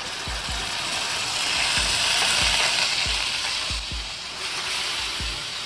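Ginger-garlic paste sizzling as it drops into hot oil with frying onions in a steel pan. The hiss swells over the first couple of seconds, then slowly eases.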